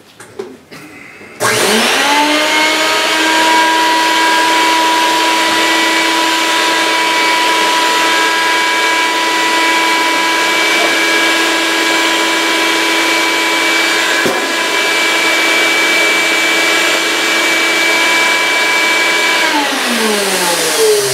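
Vacuum motor of a hobby vacuum-forming box starts about a second and a half in and spins up to a steady whine while the heated plastic sheet is drawn down over a canopy plug. A short pop about two-thirds of the way through is the sheet being sucked in and blowing a hole. Near the end the motor is switched off and winds down with a falling pitch.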